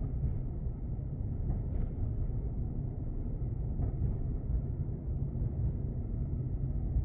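Low, steady rumble of a car driving slowly along a city street: road and engine noise, with a couple of faint clicks about two and four seconds in.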